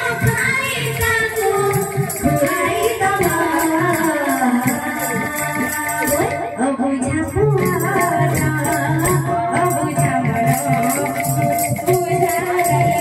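Live Odia folk dance music: a woman sings into a microphone over drums and fast, jingling metal percussion keeping an even beat.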